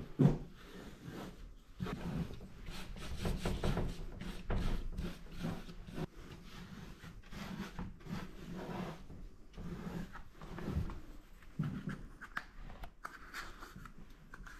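Irregular rubbing and scraping strokes of a tool across paper, with a single knock right at the start.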